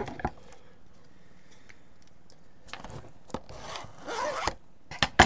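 Plastic shrink wrap on a trading-card box being cut and torn open: a few clicks, then a scratchy, zipper-like rip lasting about a second, then sharp clicks near the end, the loudest of them at the very end.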